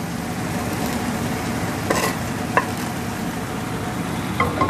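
Tomato masala sizzling in a frying pan as ground soya granules are poured in from a second pan, with a couple of sharp clicks of pan on pan about two seconds in.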